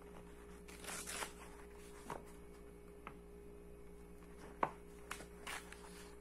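Pages of a hardcover book being flipped and turned: short paper swishes and rustles with a few light taps, the sharpest about four and a half seconds in, over a faint steady hum.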